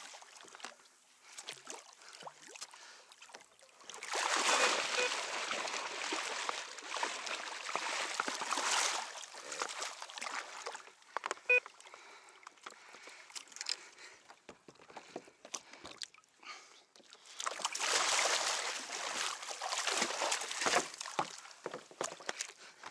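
Water splashing and sloshing beside a kayak in two long spells, with scattered knocks, as a hooked yellowtail kingfish thrashes at the surface and is brought alongside.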